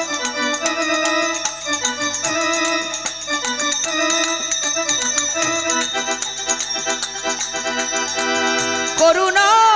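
Devotional kirtan music in an instrumental interlude: a harmonium carries the melody in held reedy notes over quick, steady strikes of hand cymbals. A singer's voice slides back in near the end.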